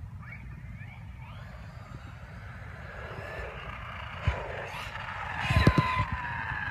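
Losi Baja Rey 1/10 RC desert truck's electric motor whining as it speeds toward the camera, its pitch falling as it passes close about five and a half seconds in. Several sharp knocks come as it nears, the loudest at the pass.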